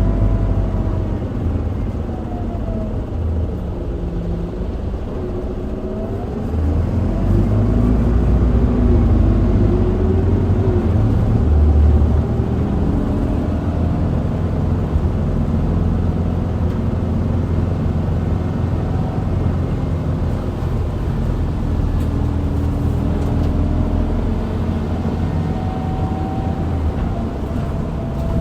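Isuzu Erga (QDG-LV290N1) diesel city bus heard from inside while driving: a heavy engine rumble with drivetrain whines that rise and fall in pitch. It pulls harder from about six seconds in until about twelve seconds, then runs more steadily.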